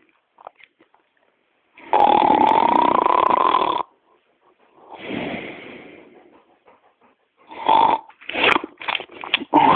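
Loud snoring: one long snore with a steady whistling tone lasting nearly two seconds, then a softer breath that fades away, then a run of short choppy snuffling sounds near the end.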